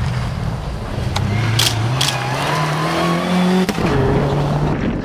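Subaru Impreza rally car accelerating hard on a gravel stage: the engine's revs climb steadily, drop at a gear change about three and a half seconds in, then run on. A few sharp cracks come between one and two seconds in.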